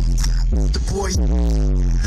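Music playing loudly through a car audio system with a subwoofer, heard inside the cabin: a deep, steady bass under a pitched melodic line that slides down in pitch several times.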